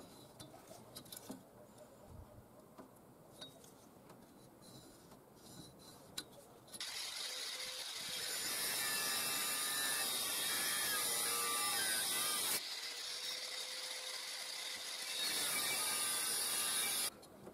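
Abrasive cut-off disc grinding through sheet steel: a loud, high-pitched cutting noise starts about seven seconds in, eases to a steady hum of the disc spinning free for a couple of seconds, cuts again, then stops abruptly. Before it, only faint handling clicks.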